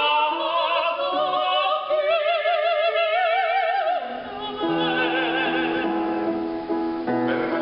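A soprano singing operatically with a wide vibrato, climbing to a held high note that breaks off about four seconds in. Piano accompaniment then carries on in steady chords, with a fresh chord struck near the end.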